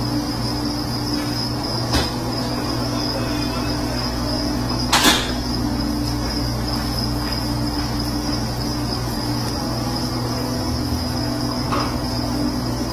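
Steady low hum with an even high-pitched whine over it, and a brief sharp knock about five seconds in.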